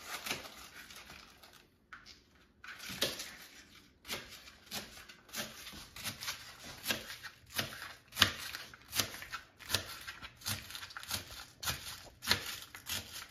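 Knife slicing a head of cabbage on a plastic cutting board: a steady run of chopping strokes, each cut ending on the board, about one every three quarters of a second.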